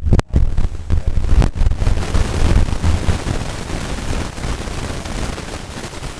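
Loud low rumble and crackling noise from a microphone running on a weak battery, with a brief dropout at the start and a knock about one and a half seconds in.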